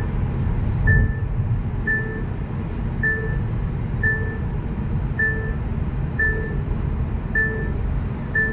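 A short electronic chime repeating at an even pace, about once a second, inside a moving car's cabin over the steady low rumble of road and engine noise.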